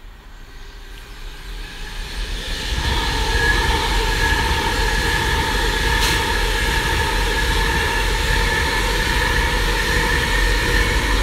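Class 390 Pendolino electric train passing at speed. Its noise builds over the first three seconds, then holds loud and steady with a steady whine running through it.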